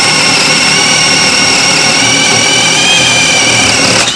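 Ryobi P251 brushless cordless hammer drill running at full speed under load, driving a spade bit through a block of wood with a loud, steady high-pitched motor whine. Near the end the bit breaks through and the whine turns cleaner as the load comes off.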